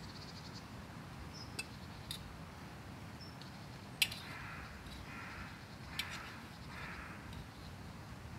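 Faint clinks of a metal utensil against a camp cooking pot, four in all, the loudest about four seconds in, with soft scraping between the later ones as food is scooped out.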